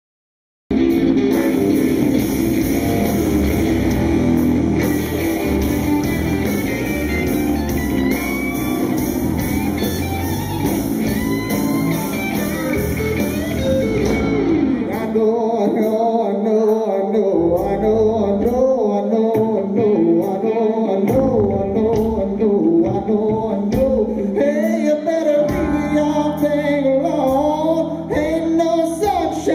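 Live rock band playing, with electric guitars and drums and a man singing lead into a microphone. The music starts just under a second in. About halfway through, the low end drops away and the vocals carry the song, and the full band comes back in near the end.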